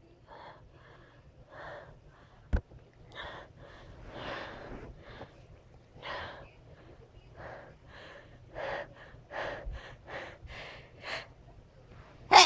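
A person's short, catching breaths in the build-up to a sneeze, about two a second and coming closer together toward the end, with a single sharp click about two and a half seconds in and a louder, sharper intake right at the end.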